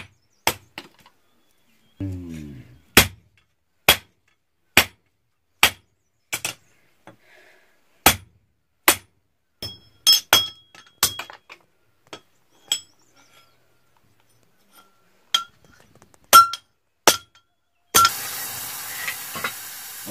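Hand hammer striking hot metal held on an anvil: sharp ringing blows, about one a second at first, then irregular and sparser. Near the end a sudden steady hiss as the hot piece is quenched in a pot of water.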